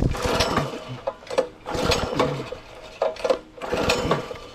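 Recoil starter of a Simpson 3100 PSI gas pressure washer pulled over and over, the engine cranking in short surges about once a second without catching. This is a cold first start on choke that will not fire.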